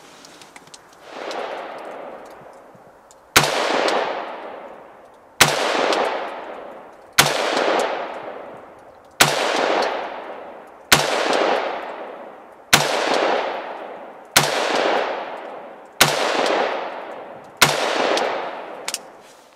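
AR-15 rifle firing steel-cased Wolf .223 ammunition in slow, deliberate single shots, about ten sharp reports one every one and a half to two seconds, each followed by a long echo that dies away. A softer first report comes about a second in.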